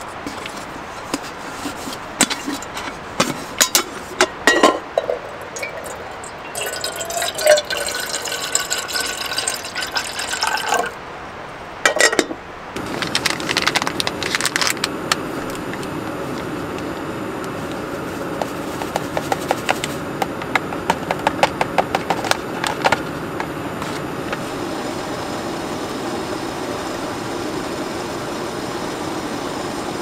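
Handling sounds of making instant hot chocolate: clinks, taps and paper rustling as a cocoa-powder stick is opened and tipped into an enamel mug. About thirteen seconds in, a steady rushing noise starts and keeps going, with quick ticking over it for several seconds.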